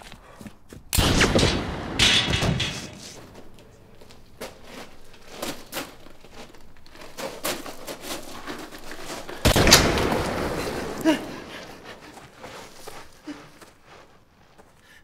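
Gunshots: two loud bangs about a second apart near the start, then a third, the loudest, about nine and a half seconds in, each followed by a long echoing decay.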